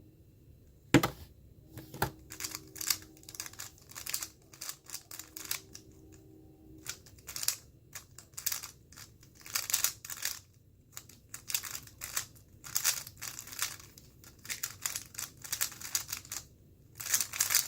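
Moyu Weilong GTS2M 3x3 speedcube being turned fast during a timed solve: bursts of rapid plastic clicking and clacking with short pauses between them. A sharp click comes about a second in.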